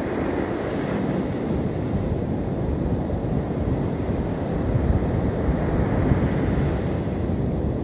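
Steady rush of sea surf on the beach mixed with wind blowing on the microphone.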